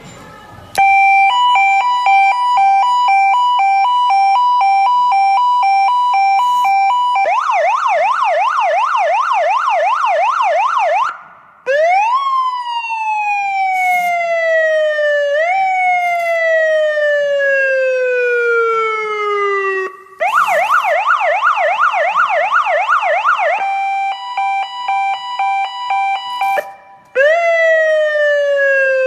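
Senken CJB55DM 25-watt police motorcycle siren speaker switched through its tones. It plays a steady two-note blaring tone, then a fast up-and-down yelp, then a wail that jumps up and slides slowly down, with short breaks as the mode changes.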